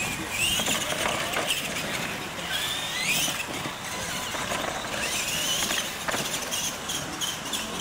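Electric radio-controlled monster trucks racing on a dirt track, their motors and gears whining up and down in pitch as the drivers throttle on and off.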